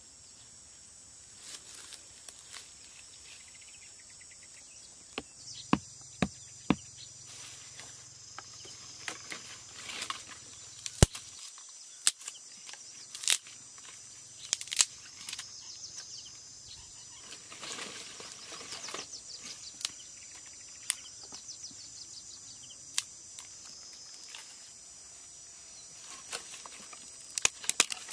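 Dry sticks snapping and knocking every few seconds as they are broken and laid in a pile for a fire, over a steady high drone of insects.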